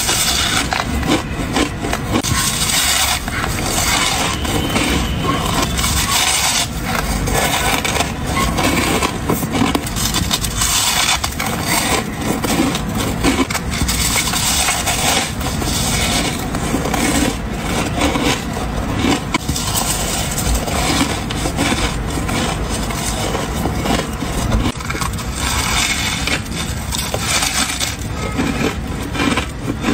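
White, snow-like frozen ice being bitten off and chewed: a dense, unbroken run of crisp crunches and crackles.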